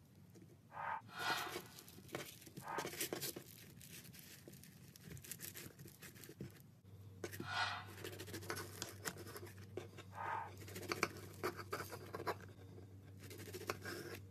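Floam (foam-bead slime) being pressed, rolled and cut by hand, crackling and squishing with many small clicks as the beads are squeezed.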